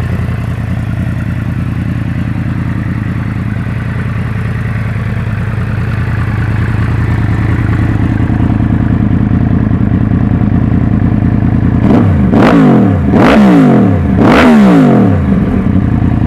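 2012 Yamaha YZF-R1's crossplane inline-four idling through Leo Vince SBK slip-on silencers and a de-catted Y-pipe, then revved three times in quick succession about twelve seconds in, each rev climbing and falling back to idle.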